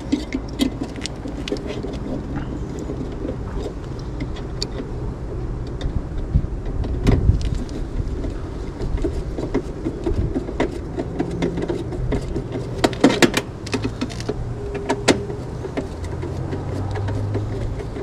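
Scattered clicks and knocks of a screwdriver and metal parts being handled inside an HVAC unit's control compartment, over a steady low rumble.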